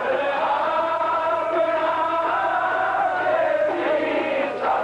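Sikh kirtan: male voices singing a shabad together in long, held notes over harmonium accompaniment. The sound is muffled, with the treble cut off, as on an old VHS tape.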